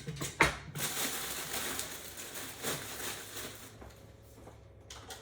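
Plastic packaging film crinkling and rustling as it is pulled off the printer parts, with a couple of sharp clicks at the start. It dies down after about three and a half seconds.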